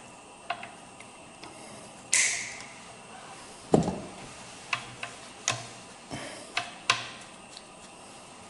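Irregular light clicks and taps of small screws and a screwdriver being handled on an RC loader's body, with one louder knock about four seconds in.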